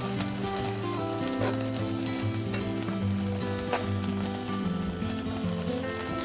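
Boiled corn kernels sizzling in melted butter in a pan while being stirred, with a few sharp clicks of the utensil against the pan. Soft background music with held notes plays underneath.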